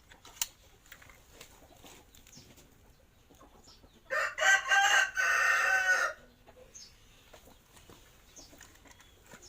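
A rooster crowing once, a loud call of about two seconds that starts about four seconds in.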